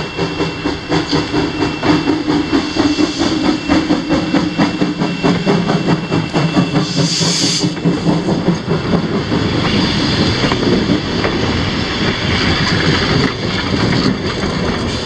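Steam train passing a few feet away: the locomotive goes by with a quick, regular beat, then passenger cars roll past with wheels clacking over the rail joints. A short burst of hiss comes about seven seconds in.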